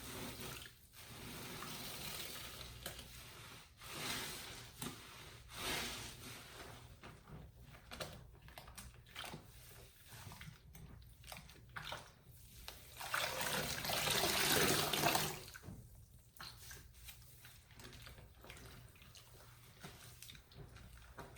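Soaked sponges being squeezed, water gushing and dripping out in a run of bursts. The longest and loudest squeeze comes about two-thirds of the way through.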